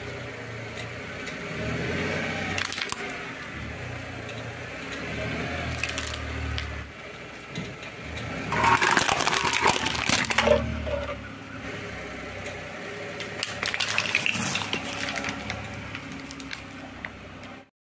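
A car tyre rolling slowly over objects on stone paving while the engine runs low. Discarded CDs crack in the first few seconds. Aluminium drink cans are crushed in a loud burst of crunching about nine seconds in, and there is more crackling near the end.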